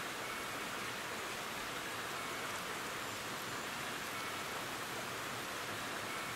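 Steady, even hiss of outdoor noise, like wind or rain, with no strikes or rhythm in it.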